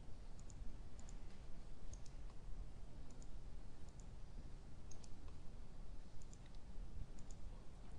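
Computer mouse clicking: a string of faint, sharp clicks, many in quick press-and-release pairs, over a low steady room hum.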